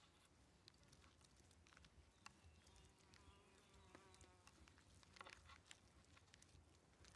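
Near silence, with faint scattered clicks and a brief faint buzzing tone about three seconds in.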